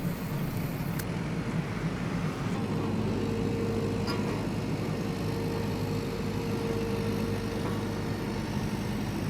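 Steady low mechanical hum and rumble, with a faint held tone from about two and a half seconds in until near the end.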